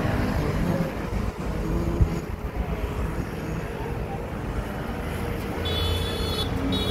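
City street traffic: a steady low rumble of passing cars and engines on the road alongside, with a brief high-pitched squeal near the end.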